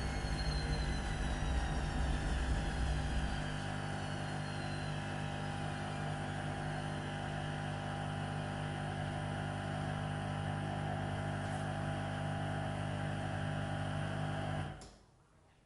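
Washing machine running. A motor whine falls in pitch over the first few seconds, and a low rumble eases off about three and a half seconds in. A steady hum then continues and cuts off suddenly near the end.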